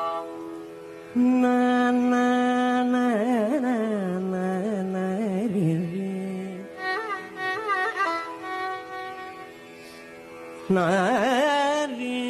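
Carnatic vocal music: a male singer holds long notes and sings wavering, heavily ornamented phrases (gamakas). About ten seconds in there is a brief softer pause, then he comes back in with a rising phrase.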